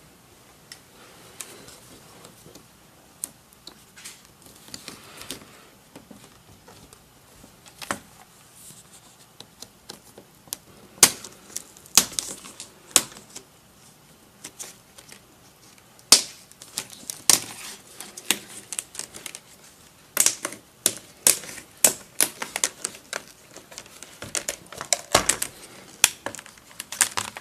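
Plastic screen bezel of a Lenovo ThinkPad T470s being pried off by fingernail, snapping loose from the lid in a series of sharp clicks and snaps. The clicks are scattered at first, grow louder about eleven seconds in, and come thick and fast over the last several seconds as the bezel comes away.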